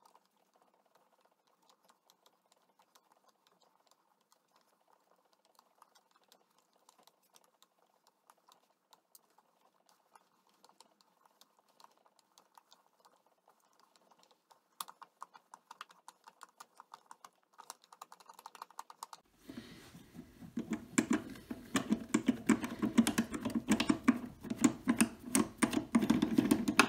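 Fast-forwarded clicking and scraping of a 3/8-24 die being turned by hand onto an aluminum blank on a lathe, cutting threads. It is faint at first and gets much louder and denser about two-thirds of the way in.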